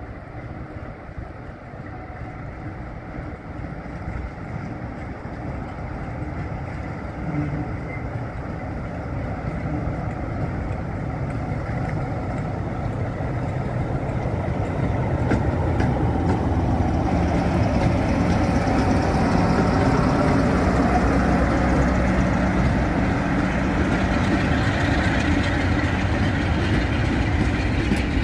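Diesel locomotive hauling a passenger train, its engine running and growing steadily louder as it approaches, loudest as it passes about two-thirds of the way in. Near the end the coaches roll past close by.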